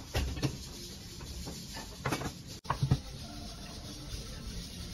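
Metal side-dish bowls being set down on a restaurant table: a run of light clinks and knocks, with a sharper cluster of knocks a little past halfway.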